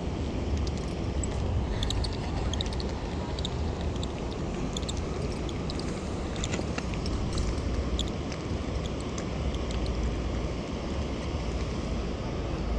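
Steady low rushing noise of a river running over rocks, with scattered light clicks over it.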